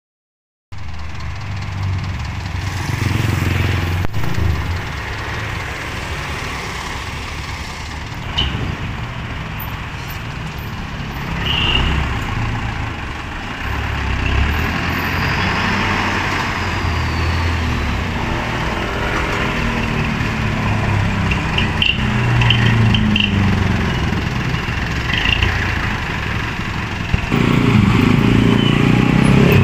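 Mitsubishi Colt Diesel dump truck's diesel engine running as the loaded truck drives along the road, mixed with passing motorcycles. Near the end a motorcycle comes close and the sound gets clearly louder.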